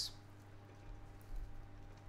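Sheep's milk feta crumbled by hand into a glass salad bowl: a faint soft patter over a steady low hum.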